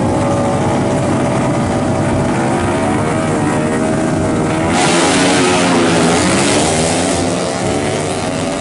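Drag-race motorcycles, among them a modified Honda Astrea Grand, revving hard in bursts at the start line, then launching: a sudden louder rush about halfway through, with the engine pitch climbing as they accelerate away.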